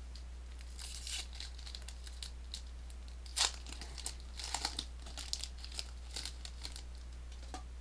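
Foil Pokémon booster pack wrapper crinkling in short, scattered bursts as it is handled and torn open, the loudest crackle about three and a half seconds in, over a steady hum.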